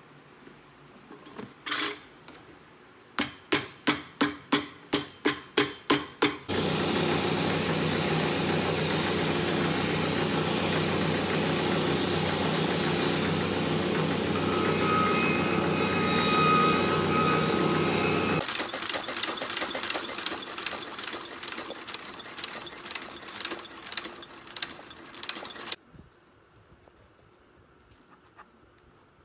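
About ten quick hammer blows on a leather boot sole over an iron last, then a cobbler's finishing machine running with a steady hum as the sole edge is sanded against its wheel, a higher whine rising near the middle. The sound then turns ragged, fades and cuts off near the end.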